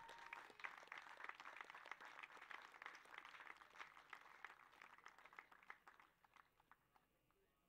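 Faint audience applause, a dense patter of clapping that thins out and fades away near the end.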